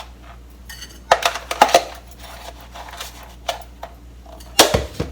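Kitchen utensils clinking and clattering against a pot and containers: a cluster of sharp clinks about a second in, a few lighter taps, and a louder knock near the end.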